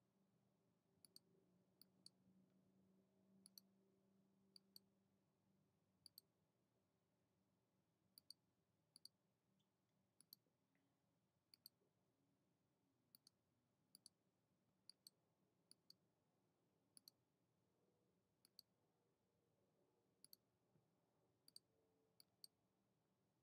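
Faint clicks of a computer mouse, irregular and often in quick pairs, about one a second, over near-silent room tone. A faint low hum dies away a few seconds in.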